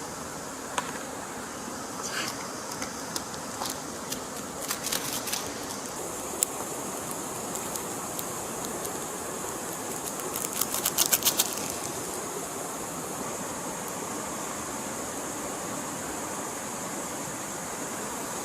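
Steady rush of a flowing stream, with scattered sharp clicks and taps over the first six seconds and a quick run of about ten clicks some ten seconds in.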